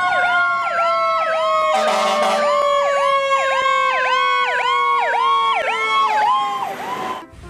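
Fire truck siren: a fast wail swooping up and down about twice a second over a steady tone that slowly falls in pitch, with a brief burst of noise about two seconds in. It cuts off abruptly near the end.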